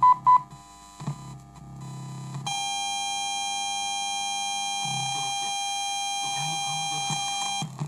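Two short beeps from an MP3/Bluetooth audio module played through a tape deck's amplifier and speakers as it changes mode, then, from about two and a half seconds in, a steady high-pitched electronic whine made of several pure tones that cuts off just before the end. The whine is ground-loop interference: the module shares the tape deck's motor power supply, and the high-frequency noise gets into the audio.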